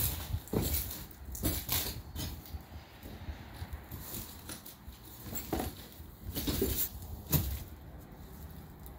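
Irregular footsteps and scuffs on debris-strewn ground, a few quick steps, then a pause, then a few more near the end.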